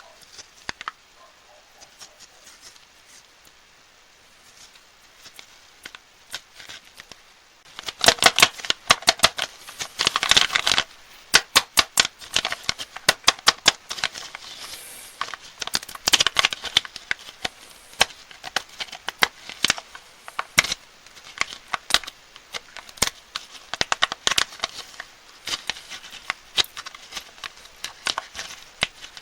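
Plastic candy wrappers being handled and opened: crinkling and crackling. It is faint for the first several seconds, then about eight seconds in comes a dense run of sharp crackles, followed by scattered crackles.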